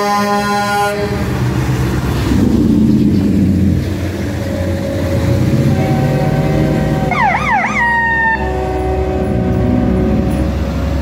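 Parade trucks passing on a wet street, engines running over road noise. A horn sounds a multi-tone chord that cuts off about a second in. About seven seconds in, an emergency vehicle's siren yelps briefly, rising and falling three times, then holds a steady tone.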